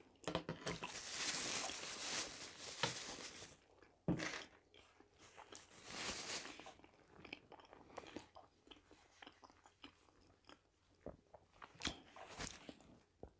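Quiet, close-miked chewing of soft zucchini fritters: wet mouth sounds in short spells with pauses between. A paper napkin rustles about six seconds in.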